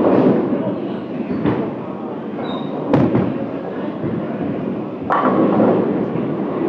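Bowling alley din: a steady rumble of balls on the lanes, broken by sharp crashes of pins about three and five seconds in.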